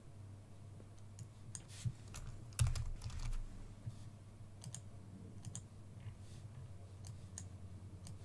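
Faint, irregular keystrokes on a computer keyboard mixed with mouse clicks, a single tap every second or so. A steady low hum runs underneath.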